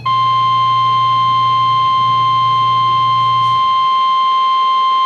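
NOAA Weather Radio warning alarm tone: a single steady beep just above 1 kHz, sounding unbroken at a constant loud level. It signals that a warning broadcast is coming. A faint low hum underneath stops partway through.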